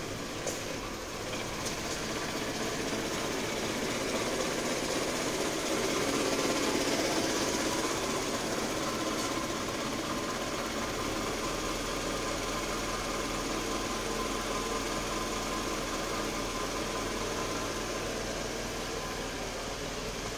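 The 2.4-litre 2AZ-FE inline-four engine of a 2008 Scion xB idling steadily, a little louder for a few seconds in the middle.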